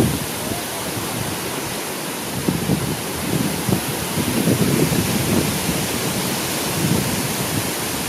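A forest fire roaring: a steady rushing hiss with uneven low rumbling surges, like gusts, and no distinct pops.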